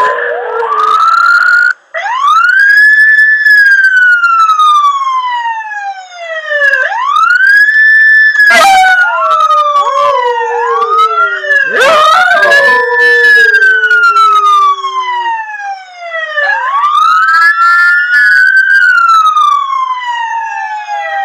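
A wailing siren sweeping up and down in long cycles of about four to five seconds, with a dog howling along to it in the first half.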